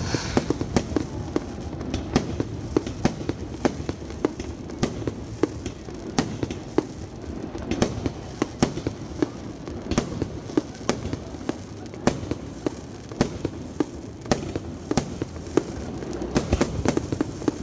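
Aerial fireworks display: many sharp bangs from shells bursting in quick, irregular succession over a continuous low rumble of distant booms.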